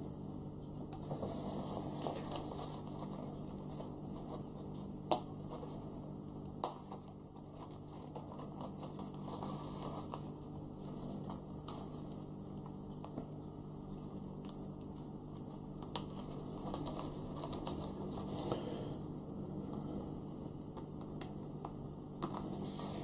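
Sharp-pointed hobby knife scratching and picking at a thin laser-cut wooden deck sheet on a cutting mat, with a few sharp ticks as the point catches and pieces are freed, the two loudest about five and six and a half seconds in. A faint steady hum runs underneath.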